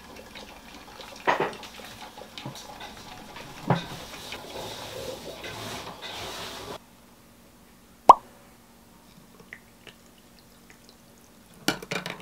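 Moritz espresso machine brewing into its glass carafe: a steady hiss with coffee dripping and a couple of knocks, cutting off suddenly about seven seconds in. Then a single sharp clink, and a few quick clinks of ice and a straw against a glass near the end.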